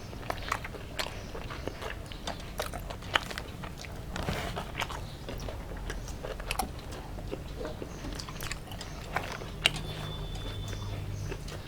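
People eating a meal of rice and curries: irregular chewing, lip smacks and small clicks of eating.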